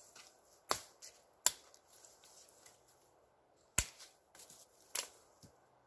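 Becker BK9 large chopping knife delimbing a small dead limb: four sharp chops of the blade through twigs, with fainter clicks between.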